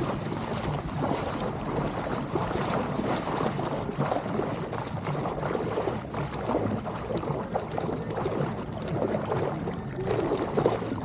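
Water sloshing and splashing as a person wades and pushes through shallow lake water.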